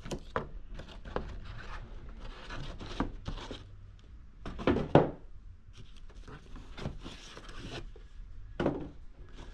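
Corrugated cardboard packaging being pulled out of a box: rubbing, scraping and knocks of cardboard on cardboard, with the loudest knock about five seconds in.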